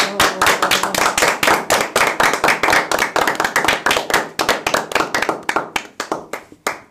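A group of people clapping their hands together, dense overlapping claps that thin out and stop near the end.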